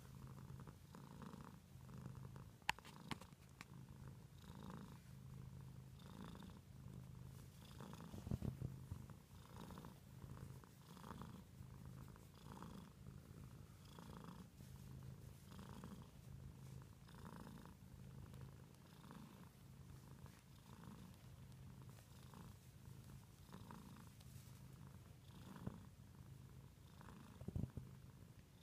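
Domestic cat purring faintly and steadily while being stroked, the purr swelling with each breath about every second and a half. A few brief bumps stand out over it.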